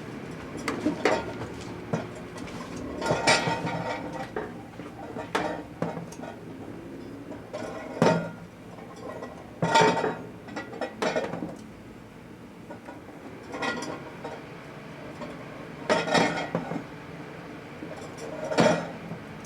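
Microwave oven running with a steady hum, a 400-watt high-pressure sodium bulb inside it, and about nine sharp clinking, crackling bursts at irregular intervals.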